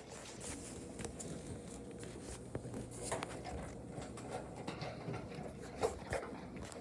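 Faint, scattered clicks and light rustling of a dog moving about on a hard floor.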